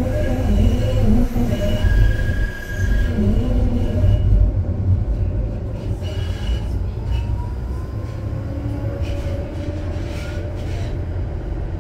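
Ride inside a moving Škoda Transtech Artic light-rail tram: a steady low rumble of wheels on rail, with squealing tones from the wheels over the first few seconds, then a whine that rises in pitch.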